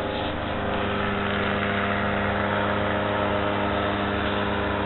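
An engine running steadily, a constant hum of several pitched tones over a rushing noise.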